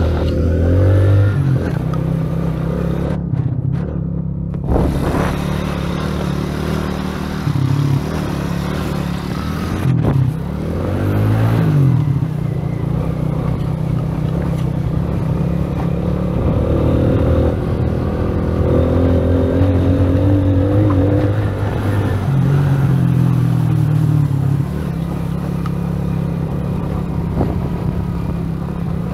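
Motorcycle engine running under way, with the revs dropping and climbing again about ten seconds in and changing several more times.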